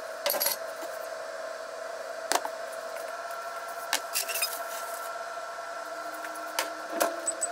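Ceramic dishes set down on a kitchen counter with a few light knocks and clicks, over a steady hum.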